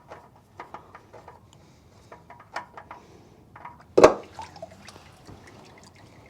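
Engine oil dripping and splattering in irregular drops during an oil and filter change, with a single loud knock about four seconds in.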